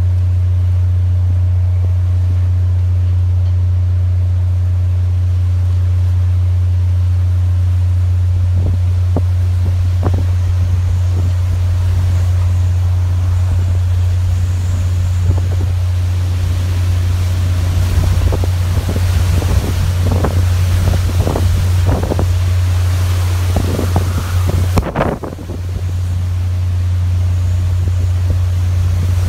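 Hurricane-force wind gusting over the microphone as a heavy, steady low rumble, with buffeting knocks. A rushing hiss of wind and rain swells from about 18 seconds in and drops out briefly near 25 seconds.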